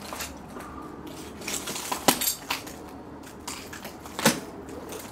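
Footsteps crunching over debris on the floor: scattered clicks, cracks and rustles, with two sharp cracks about two seconds and four seconds in.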